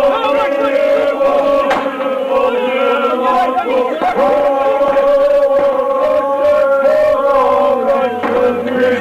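A group of men chanting together in long, held notes, the phrase breaking and starting again about four seconds in and once more near the end.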